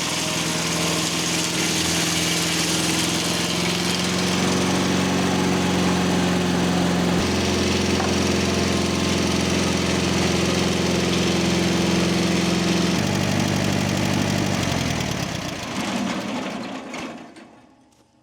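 Mobile Dimension circle sawmill running, its engine under load as the sharpened saw bits cut through poplar. The engine note shifts twice, then the mill winds down and goes quiet near the end.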